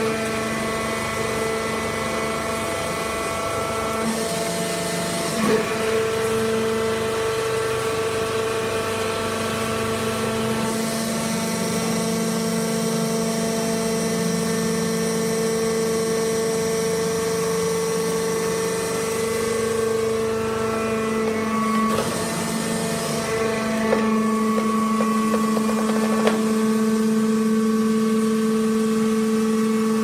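Hydraulic wood-shavings baling press running with a steady hum from its motor and hydraulic pump. The hum changes tone several times as the press works through its cycle, and a few short knocks come from the machine.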